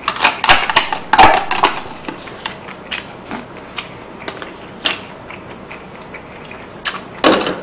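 Close-miked eating: a spoon scraping a disposable food container and the sharp clicks of chewing, densest in the first two seconds and sparser after, with one louder burst about seven seconds in.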